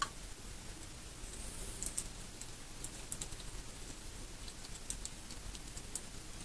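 Alligator clips and test leads being handled and clipped onto the terminals of a marine starter solenoid, giving scattered small, light metallic ticks and clicks. There is one sharper click right at the start.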